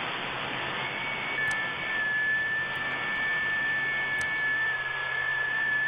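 Shortwave receiver audio on the 60-metre FT8 frequency: an even band hiss, with thin steady tones of FT8 digital-mode signals coming in about a second in.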